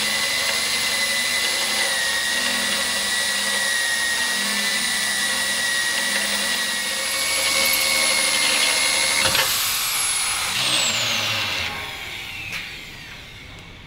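Hand-held drill driving a carbide-tipped holesaw through steel plate: a steady high whine over the grinding noise of the cut. About nine seconds in there is a sharp click as the cutter breaks through. The whine then falls in pitch and fades as the drill winds down.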